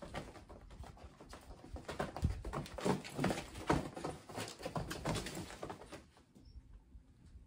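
Kittens scampering, pouncing and wrestling on the padded fabric floor of a pop-up playpen: a quick, irregular patter of paws and scuffling thumps, dying down about six seconds in.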